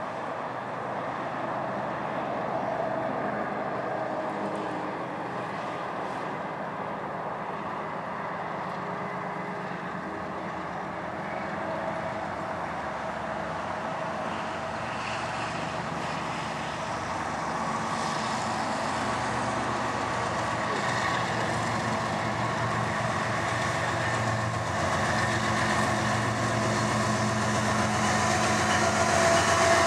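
Approaching diesel locomotives: the GEVO V16 engines of two GE ES44AC units leading a loaded coal train, a steady drone that grows louder as the train nears.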